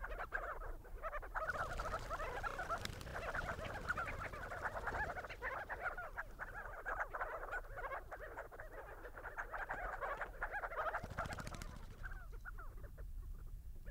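A flock of crowned and spotted sandgrouse calling together in a dense chatter of many short overlapping calls. The chatter thins to scattered single calls about twelve seconds in.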